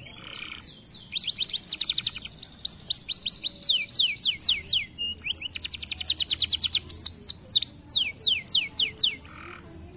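Domestic canary singing: fast rolls of high, sweeping whistled notes whose pace changes from one roll to the next. The song starts about a second in, breaks briefly midway and stops just before the end.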